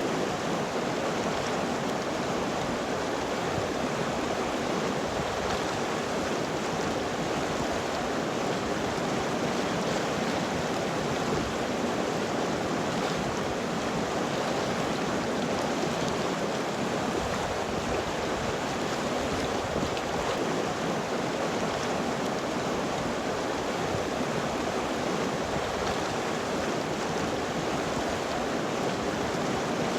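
River water flowing over rocks: a steady, even rushing with no breaks.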